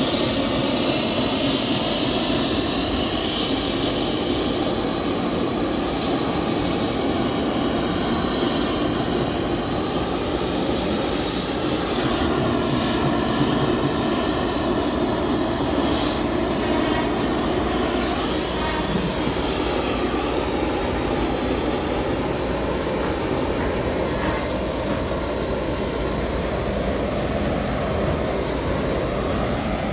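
Workshop piston air compressor running steadily, with compressed air hissing from the hose-fed spray gun.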